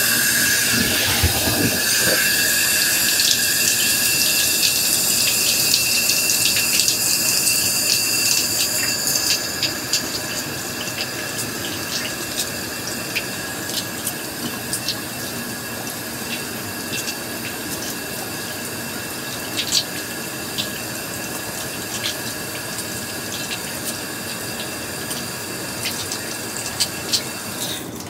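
Kitchen faucet running water steadily into the sink, with hot water run over hardened plumber's putty to make it pliable again. The flow eases a little about ten seconds in, a few light clicks sound along the way, and it cuts off abruptly at the end.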